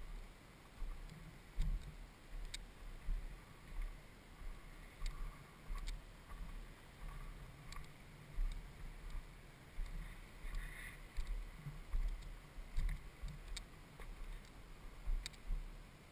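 KTM 530 off-road motorcycle rolling slowly over a rough gravel track: irregular dull low thumps from the engine and bike, with scattered sharp clicks and knocks.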